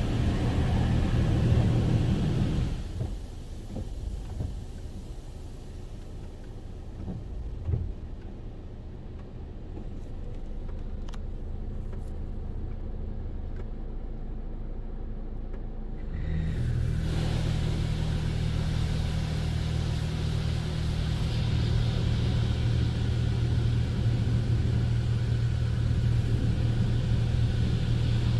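WaterWizard touchless car wash spraying water onto the car, heard from inside the car. The spray stops about three seconds in, leaving a quieter stretch with a low hum, then around sixteen seconds a steady low hum and water spray start again and run on.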